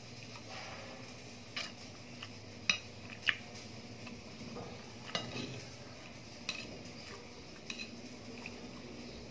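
Spoon and fork clinking and scraping against a plate while eating rice, in scattered sharp clinks, the two loudest a little over half a second apart about three seconds in.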